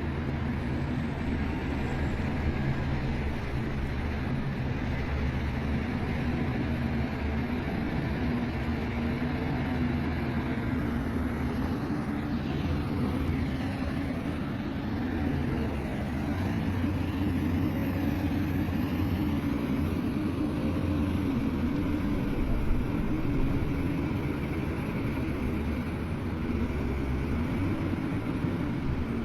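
Diesel engine of heavy earthmoving machinery running steadily, its pitch shifting a little now and then as it works.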